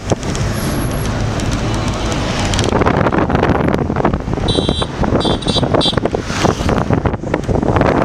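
Wind buffeting the microphone over a steady low rumble, with three short high-pitched chirps about four and a half to six seconds in.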